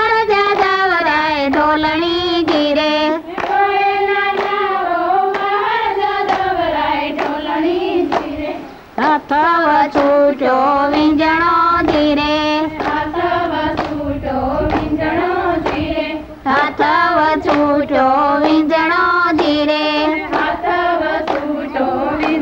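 Women's voices singing a folk song together, with hand claps keeping the beat about twice a second.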